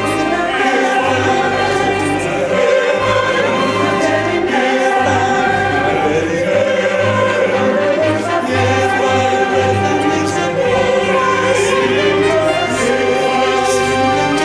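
Choir singing a worship song with instrumental accompaniment, holding long notes.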